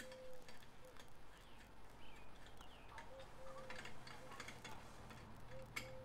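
Light scattered metallic clicks and taps of hand tools working on the exhaust tip while the engine is off, with a few faint short chirps.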